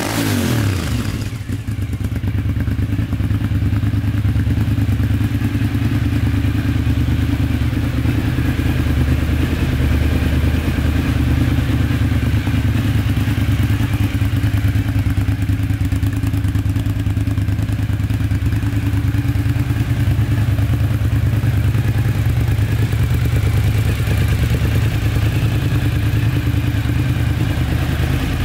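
Cagiva Raptor 1000's 996 cc Suzuki-built V-twin engine dropping back from a blip of revs about a second in, then idling steadily.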